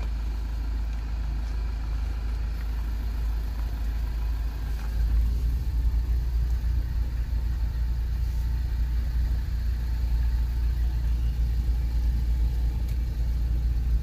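Steady low rumble of a car driving, engine and road noise heard from inside the cabin, growing louder about five seconds in.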